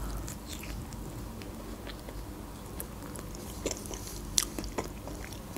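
Close-miked chewing of a mouthful of soft food (boiled potato and smoked mackerel), with scattered small mouth clicks and smacks, a few sharper ones about four seconds in.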